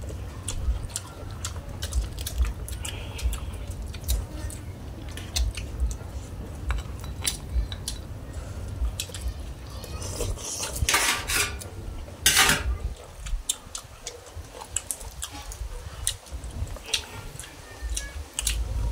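Metal spoons clinking and scraping on a large metal serving tray as several people eat bamboo-shoot curry, with small eating noises between the clicks. A louder burst of noise comes about halfway through.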